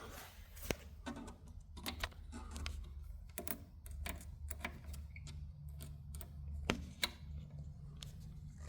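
Irregular small sharp clicks and taps, a few a second, of multimeter probe tips touching and scraping on the metal bus bars while taking a voltage reading. A low steady hum runs underneath.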